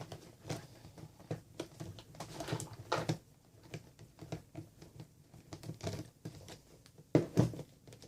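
Roller skate wheels being taken off: irregular clicks and light knocks of the skate tool on the axle nuts and the wheels being handled, with a louder knock about seven seconds in.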